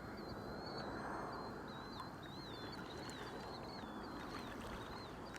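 A bird chirping over and over, short thin high notes about twice a second, over a low steady background rush.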